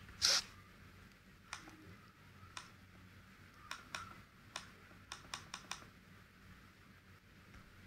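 Scattered clicks of computer keyboard keys and mouse buttons, about a dozen in all, the loudest just after the start and a quick run of them about five seconds in.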